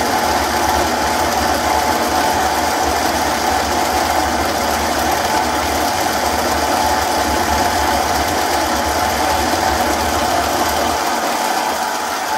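MicroLux 7x16 mini lathe running steadily while turning the threads off a small part. A low hum under the machine noise drops away about a second before the end.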